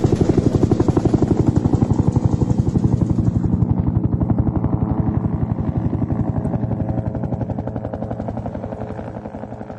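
Helicopter rotor beating in a fast, even rhythm, fading out gradually.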